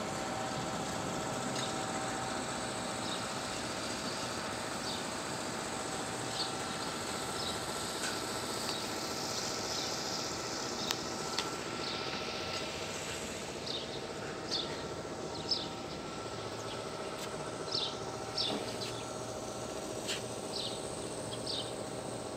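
Town ambience: a steady hum of distant traffic and engines, with short high bird chirps scattered through it, more of them in the second half.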